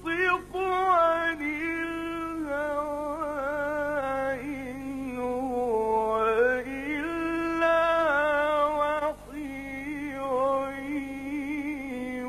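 A male Quran reciter's solo voice in melodic mujawwad recitation, holding long notes and ornamenting them with wavering turns of pitch, with a brief pause for breath about nine seconds in.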